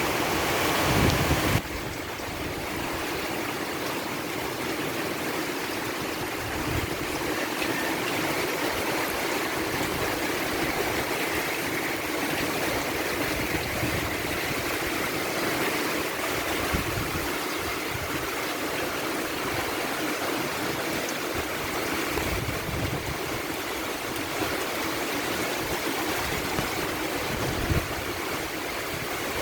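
Steady rain falling, a continuous even hiss of water; it drops a little in level about a second and a half in, then holds steady.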